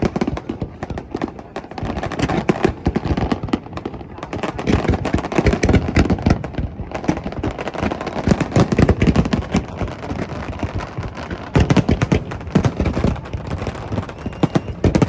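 Aerial fireworks going off in a dense barrage: many sharp bangs and crackles a second, with short lulls between the heaviest volleys.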